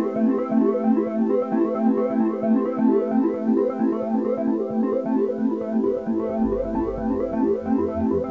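Background instrumental music with quick repeated notes; a lower bass part comes in about six seconds in.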